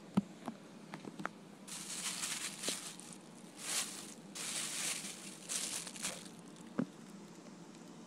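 Rustling, crinkling handling noise in several stretches, with a few sharp clicks and taps.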